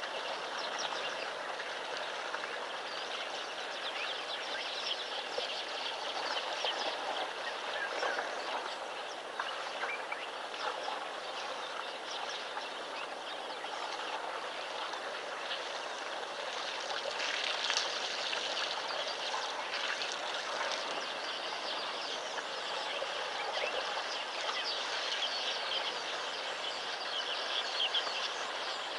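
Outdoor bush ambience: many birds chirping and calling over a steady background hiss.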